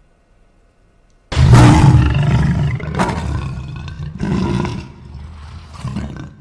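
A recorded lion's roar starting suddenly about a second in: one long, loud roar followed by a few shorter roars that fade away.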